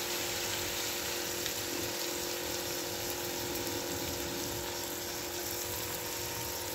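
Chicken pieces in a yogurt marinade sizzling steadily in oil and tomato masala in a frying pan.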